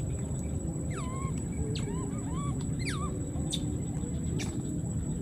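Several short, squeaky animal calls, each dropping in pitch, come in quick succession from about one to three seconds in. A couple of sharp clicks follow. Both sit over a steady low rumble and a thin, high, steady whine.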